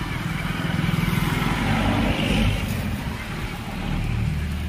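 A motor vehicle's engine running, with a low steady hum that swells louder about two seconds in.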